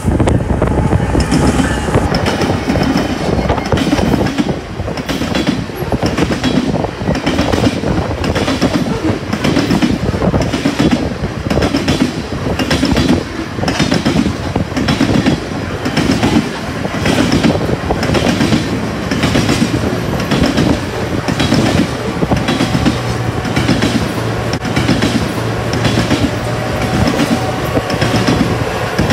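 BNSF coal train passing at close range: the lead diesel locomotives go by first, then a long string of coal cars rolls past with a steady rhythm of wheel clacks over the rail joints and heavy rumble.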